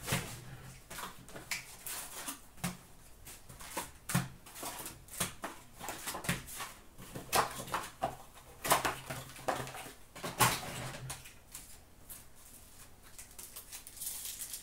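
Hobby box of hockey card packs being opened and handled: cardboard flaps and foil wrappers rustling and crinkling in quick irregular bursts, with a faint low hum underneath for most of it.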